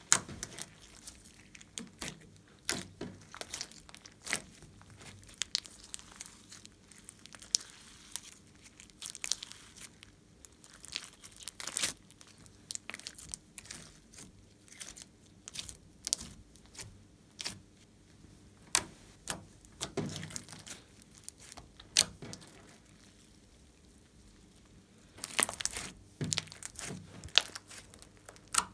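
Glossy slime being poked, stretched and pressed by hand: irregular sharp clicks, pops and crackles as air pockets in the slime burst, with a busier flurry near the end.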